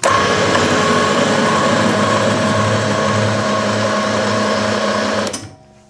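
Knee milling machine's spindle motor running at slow speed, power-driving a 1-1/4-inch fine-thread tap into a hole, a steady whir with a mechanical hum. It cuts off suddenly about five and a half seconds in.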